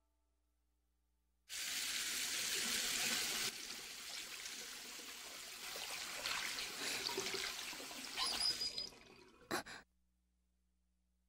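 A loud, even rushing hiss that starts suddenly, runs for about eight seconds, flares briefly near the end and cuts off abruptly.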